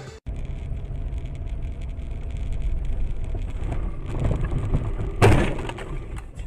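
Steady low engine and road rumble of a car driving, then one short, loud bang a little past five seconds in as the car collides with another car.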